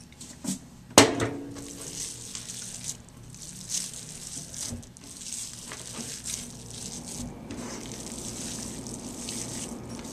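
A bowl knocked down on a plastic cutting board about a second in, then hands kneading a stiff peanut butter fudge mixture with chopped pecans: a sticky, irregular crackling over a steady hiss.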